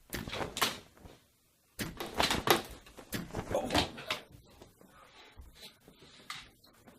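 A run of knocks and clatters, with a brief dead-silent gap about a second and a half in.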